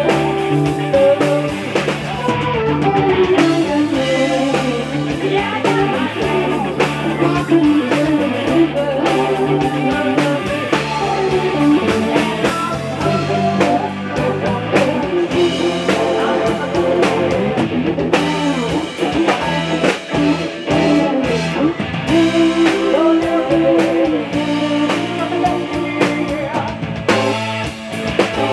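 Blues-rock music: an electric guitar playing over bass and a drum kit, at a steady loud level.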